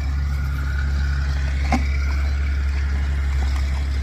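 A vehicle engine idling with a steady low hum, with one short knock near the middle.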